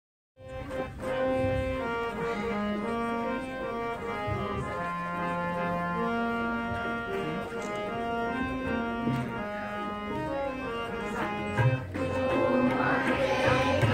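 Harmonium playing the melody of a Sikh shabad, holding notes and moving from note to note, with occasional low tabla strokes. Voices begin to come in near the end.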